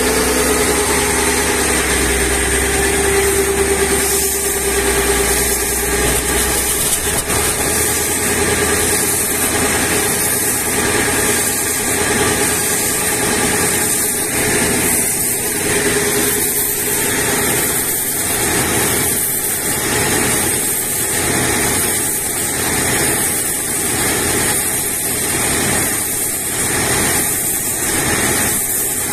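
Water well drilling rig's engine and hydraulics running steadily under load as the drill string turns in the borehole, with an even pulse about once a second. In the first few seconds a whine sinks slightly in pitch.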